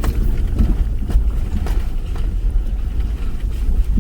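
Subaru Forester driving on a rough dirt trail, heard from inside the cabin: a steady low rumble of engine and tyres with scattered light knocks and rattles over bumps.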